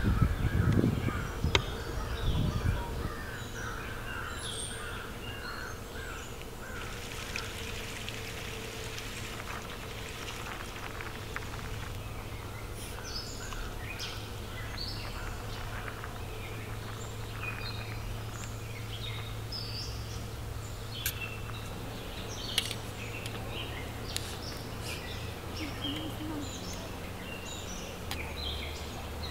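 Outdoor rural ambience with small birds chirping and calling on and off throughout. There are a few knocks in the first seconds, and partway through comes a short hiss of tea being poured into a glass mug.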